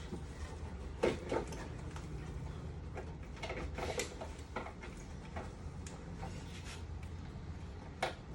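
Scattered light clicks, knocks and rustling of a wiring harness and its plastic connectors being handled and pulled free in an engine bay, over a low steady hum.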